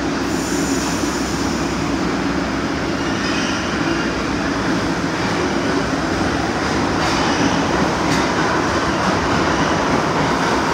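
New York City Subway train of R62A cars pulling out of the station past the platform, its wheels and motors making a steady rail rumble that grows a little louder as it gathers speed, with a motor whine coming up near the end.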